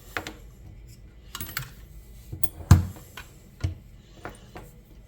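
Small hard parts clicking and knocking as they are handled and set down, with one louder knock a little under three seconds in.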